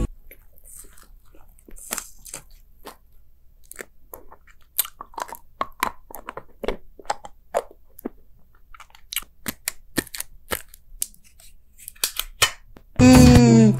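ASMR eating sounds: bites and crunches of chocolate candies, among them a chocolate coin, as irregular sharp clicks with short quiet gaps. Speech over music cuts in just before the end.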